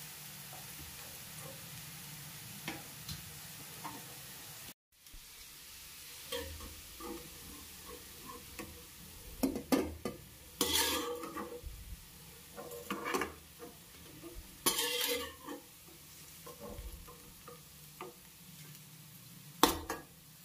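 Slotted steel spoon scraping and scooping fried cauliflower florets out of a kadhai of hot oil and tipping them onto a steel plate: a series of metal scrapes and clatters over a steady faint sizzle of the oil. The louder scoops come in clusters about ten, thirteen and fifteen seconds in, with a sharp clatter near the end.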